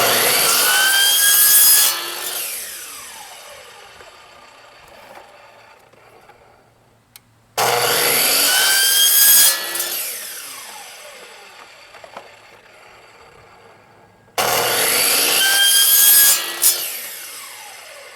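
Power saw with a wood blade making three quick cuts through vinyl rain gutter, each about two seconds long and about seven seconds apart. After each cut the blade whines down as it coasts to a stop.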